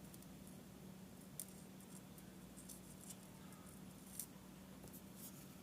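Near silence with a low steady hum, broken by a few faint, sharp clicks and light handling noises as small ribbon craft pieces are picked up and placed by hand.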